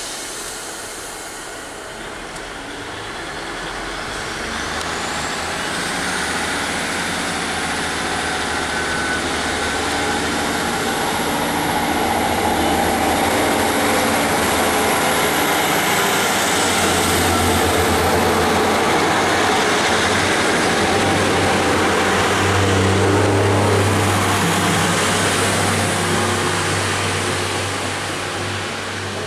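Class 150 Sprinter diesel multiple unit pulling away from the platform, its diesel engines building as it accelerates past. A high whine rises in pitch over the first few seconds and then holds steady, and a deep engine drone is loudest about two-thirds of the way through. The sound eases as the train draws away.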